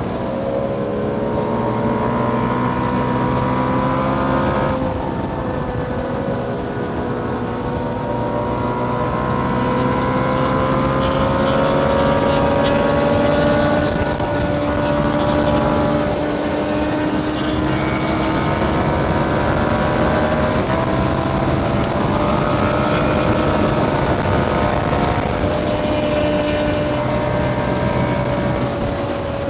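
2021 KTM Duke 890R's parallel-twin engine running hard through an Austin Racing GP1R catless exhaust. The engine note climbs slowly and eases back several times, with a sharp drop in pitch about five seconds in.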